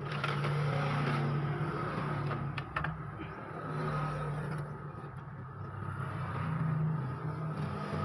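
A motor engine running steadily with a low hum that swells and fades, with a few sharp clicks about two and a half seconds in.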